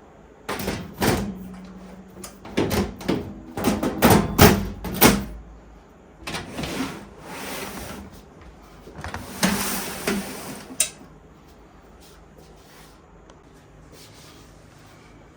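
Metal lid of a rackmount server chassis being put back on and closed: a run of knocks and clatter for about five seconds, then two scraping slides, the second ending in a sharp click.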